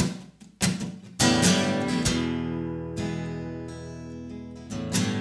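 Acoustic guitar music: a few strummed chords, then a chord left to ring and slowly fade, with another strum near the end.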